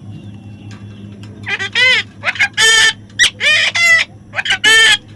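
Parrot squawking: a quick run of loud, arching calls begins about one and a half seconds in and continues to the end.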